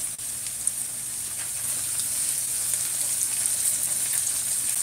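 Onions, garlic, scallion and salt cod frying in coconut oil in a non-stick pan: a steady sizzle with light crackling.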